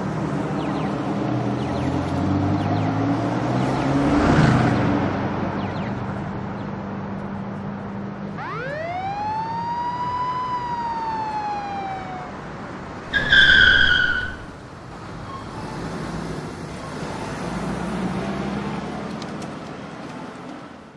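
Road traffic sound effects: car engines running, with a car passing by about four seconds in. About eight seconds in comes a single police siren wail that rises quickly and then falls slowly. Soon after, a loud horn blast of about a second, the loudest sound; the traffic noise then fades out near the end.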